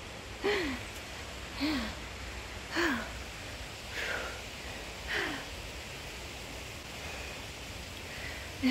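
A woman breathing hard from exertion after a steep uphill climb: five short voiced exhales, each falling slightly in pitch, about a second apart, then fainter breathing.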